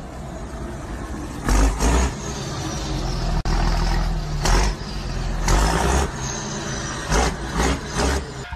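Road and engine noise heard through a dashcam while a loaded dump truck ahead overturns onto its side, with several heavy low thuds and rumbles, the first about a second and a half in and a cluster near the end.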